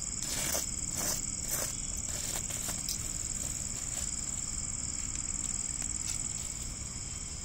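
Crickets chirring steadily, with intermittent scrapes and clinks of metal tongs and a spatula raking through ash and lifting a foil-wrapped parcel out of the embers.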